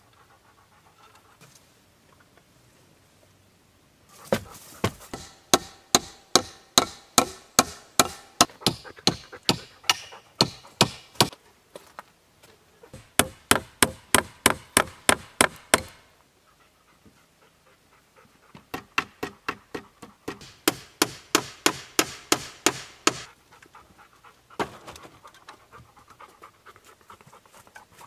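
Hammer blows fixing a metal strap hinge to a wooden gate and post: three runs of steady, sharp strikes at about three a second, with short pauses between.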